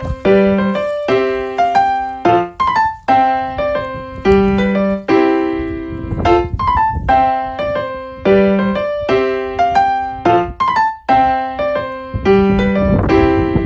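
Background music on piano or electric piano: a light melody of struck notes that die away, repeating its phrase about every four seconds.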